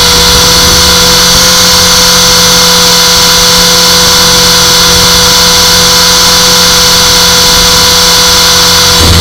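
Align T-Rex 450 electric RC helicopter's motor, gears and rotor running with a loud, steady high whine at constant speed. Right at the end the pitch starts to fall as it begins to spool down.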